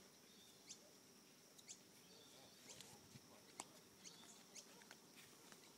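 Near silence: faint outdoor background with a scattering of faint, short, high bird chirps.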